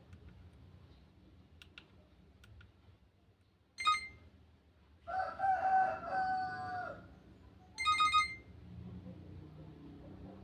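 A Nokia 1315 ringtone played through a Nokia 110's small speaker: a short electronic chime, then a recorded rooster crow of about two seconds that falls in pitch at its end, then the chime again.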